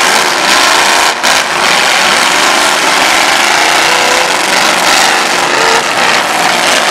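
Demolition derby cars' engines revving hard as the wrecked cars shove against each other, the revs rising and falling over a dense, steady din.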